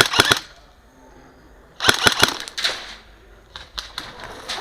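Airsoft guns firing quick full-auto bursts: a fast string of sharp cracks, about nine a second, ending about half a second in, a second burst about two seconds in, then a few scattered shots near the end.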